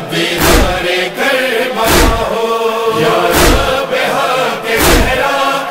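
Urdu noha (Shia lament): voices chanting a drawn-out refrain over a deep thud that keeps time, four beats about a second and a half apart.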